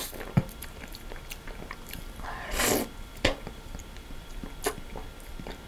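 Close-miked mouth sounds of someone eating a spoonful of sherbet ice cream: soft smacks and small wet clicks, with one short breathy noise about two and a half seconds in.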